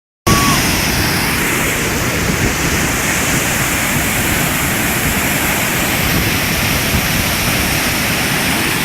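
Waterfall: a steady, loud rush of falling water close by, with a brief high beep right at the start.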